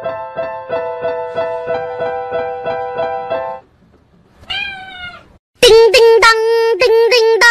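A cat pawing the keys of a digital piano, sounding repeated notes about three a second, then a single meow. About two seconds before the end a loud, high singing voice starts, held notes with short breaks.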